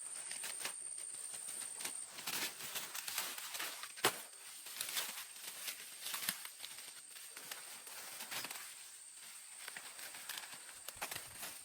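Rustling and crackling of plants being handled, with scattered sharp clicks and one sharp snap about four seconds in.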